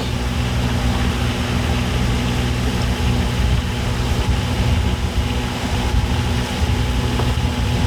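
A small sailboat's outboard motor running steadily under way, with a loud rush of wind over the microphone.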